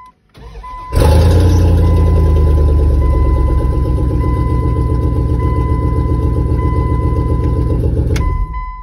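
1998 Dodge Ram 1500's 318 (5.2 L) V8 starting about a second in, then running loud and steady with a section of exhaust pipe missing from behind the Y-pipe, heard from inside the cab. The sound cuts off suddenly near the end.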